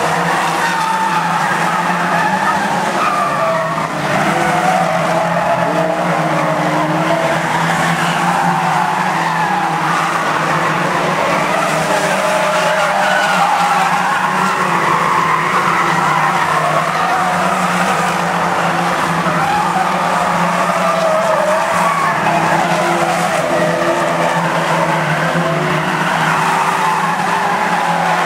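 A pack of banger-racing stock cars running flat out round an oval, several engines overlapping with pitches rising and falling as drivers accelerate and lift off, with tyres scrubbing and sliding on the asphalt.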